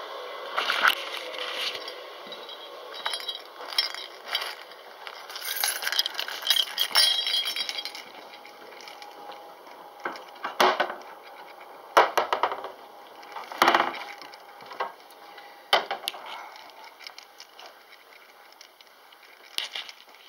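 Handling noise from a camera being carried and moved about: rustling with clicks and clinks over the first several seconds, then a handful of separate sharp knocks.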